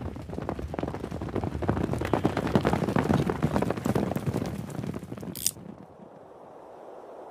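Dense, irregular crackling and popping that builds up and then thins out. It drops away suddenly about five and a half seconds in, leaving a faint hiss.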